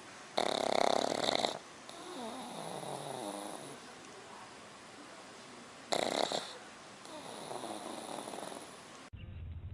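A sleeping dog snoring: two loud rasping snores on the in-breath, about half a second in and again about six seconds in, each followed by a softer whistling out-breath that falls in pitch.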